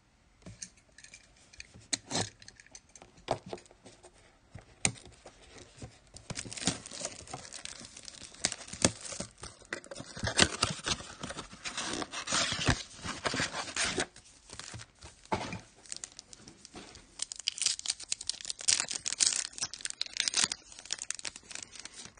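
Trading-card packaging being torn open and crinkled by hand, in repeated bouts with sharp clicks and rustles.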